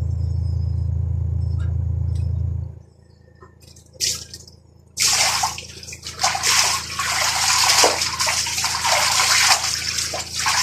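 A washing machine motor hums steadily, then cuts off after nearly three seconds. About two seconds later, water starts pouring noisily and steadily into the machine's tub.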